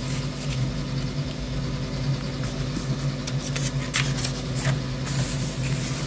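Paper rustling and crinkling as a booklet is handled and opened by hand, with a few sharp crinkles about four seconds in and a longer rustle of pages a second later, over a steady low hum.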